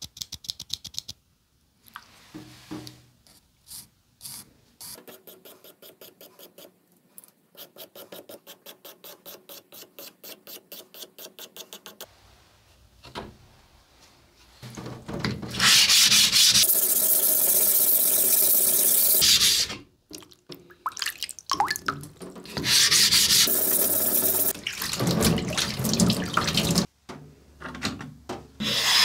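Light rhythmic scratching strokes, about two or three a second, as a pencil marks lines across a whetstone. Then tap water runs steadily into a sink for about four seconds, followed by wet rubbing of stone on stone.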